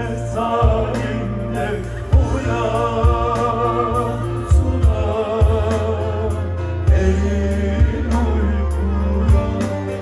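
Man singing a Turkish folk song live through a PA system, drawing out long wavering notes. Behind him play a bağlama, a keyboard and a steady low drum beat.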